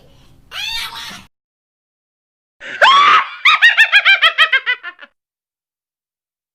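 A baby's short vocal sound, then after a pause a loud high-pitched squeal that breaks into a quick run of giggles, several a second, fading out about five seconds in.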